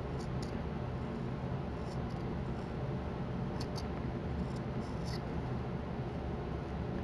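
Whittling knife slicing shavings from a basswood block: short scraping cuts, often in pairs, every second or two, over a steady low background hum.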